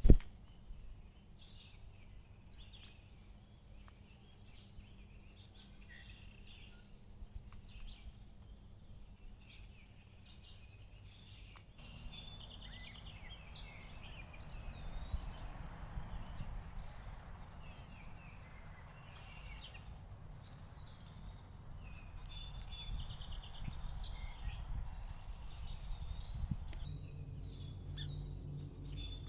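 House finches chirping and warbling in short, varied phrases, busiest about twelve seconds in and again past twenty, over a steady low background rumble.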